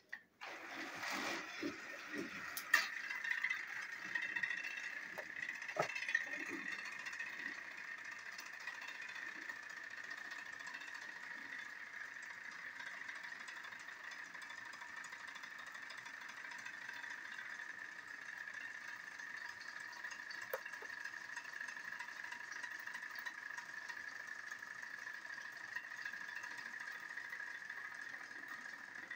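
Small electric motors of two battery-powered TrackMaster toy train engines whirring in a steady high whine while the engines stay pressed against a buffer stop on plastic track. A few plastic clicks and knocks come in the first several seconds as the engines are set on the track.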